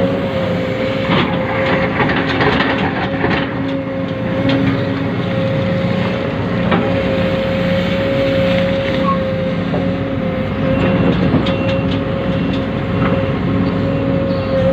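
Small electric motors of radio-controlled model vehicles whining steadily at one pitch, with scattered short clicks and rattles, most of them in the first few seconds.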